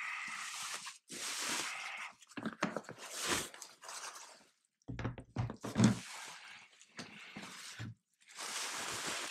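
Plastic bubble wrap crinkling and rustling in irregular bursts as it is pulled off an aluminium carrying case, with a few dull knocks about five to six seconds in.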